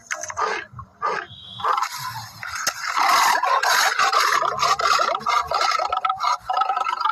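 Lion roaring: a run of short grunting calls, about two a second, then from about two seconds in a loud, harsh, continuous growling roar that lasts to the end.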